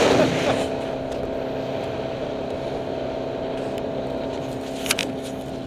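Motorboat engine running steadily as the boat cruises over calm water, with a brief sharp click about five seconds in.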